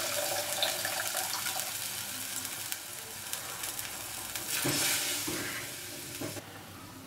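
Water poured in a thin stream into a clay pot of hot curry gravy, splashing and sizzling, then a wooden spatula stirring through the gravy, loudest about five seconds in.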